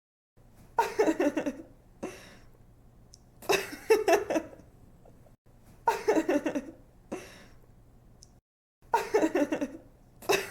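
A young woman laughing in four short bursts of quick, pitched 'ha-ha' pulses that repeat about every two and a half seconds. A faint steady hum sits between the bursts.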